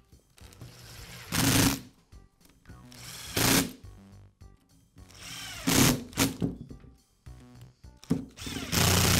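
Cordless driver running in about five short bursts, a second or two apart, driving screws into the plastic handle housing of a DeWalt polisher. The last burst starts near the end and runs longer.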